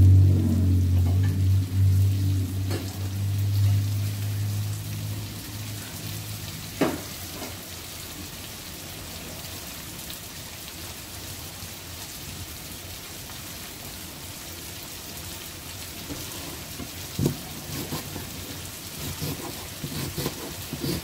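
Diced chayote, potato and carrot sizzling in a frying pan, a steady hiss with a sharp click about seven seconds in and light pops and ticks near the end. A low hum is heard over the sizzle in the first few seconds and fades out.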